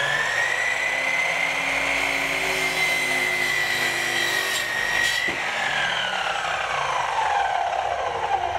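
Sliding miter saw running at full speed with a steady high whine while its blade cuts through a wooden board; the trigger is released a little past five seconds in and the whine falls as the blade spins down.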